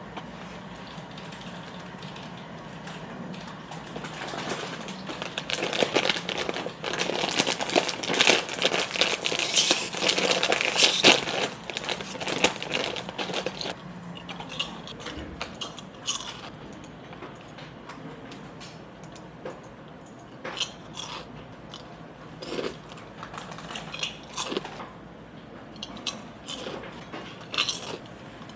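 Crunchy food being bitten and chewed close to the microphone. A dense run of crackling crunches lasts several seconds, then thins out to scattered single crunches.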